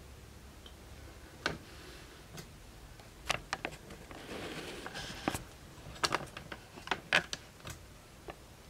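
Handling noise: scattered light clicks and taps, about a dozen in all, with a short soft rustle in the middle.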